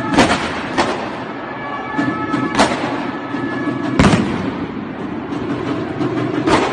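Firecrackers going off in the street: five sharp bangs at uneven intervals, the one about four seconds in the loudest and deepest, each trailing off in a short echo over a steady background din.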